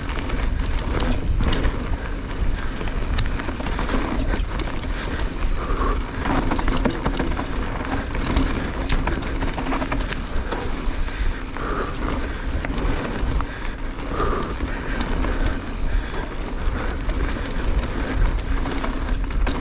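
Mountain bike riding fast down a dry dirt singletrack: tyres rolling over dirt and leaves and the bike rattling over bumps, with many small knocks and clicks, over a steady low rumble of wind on the helmet or chest microphone.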